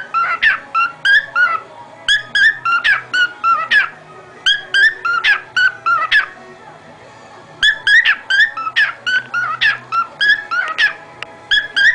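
Background music: a high, whistle-like melody of short repeated notes in phrases, with a pause of about a second and a half near the middle.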